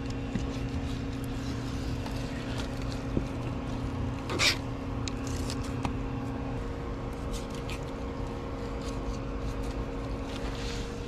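A steady low machine hum, like an electric motor or compressor running, with a few faint scrapes and ticks of a fillet knife working a barracuda fillet on a plastic cleaning table.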